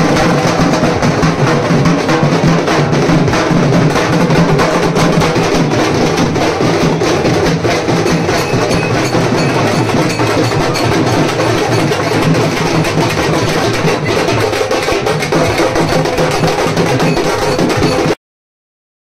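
Street procession drum band: several stick-beaten drums played together in a fast, dense, continuous rhythm. The sound cuts off abruptly near the end.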